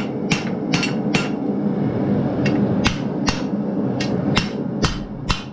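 Hammer striking hot half-inch steel bar on the anvil horn as the bar is curled into a ring: about ten sharp metallic blows at an uneven pace, some with a brief ring.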